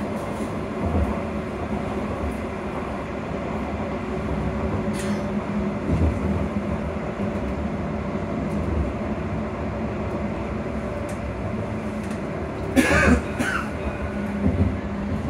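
Double-decker bus's AC electric traction motor whining steadily under way, with body rumble and rattles heard from the upper deck. A sharp clatter about 13 seconds in, and a smaller one about 5 seconds in.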